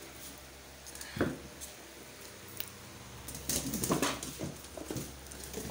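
Two small puppies play-fighting: paws scrabbling and knocking on a wooden board. There is a busier burst of scuffling about three and a half seconds in.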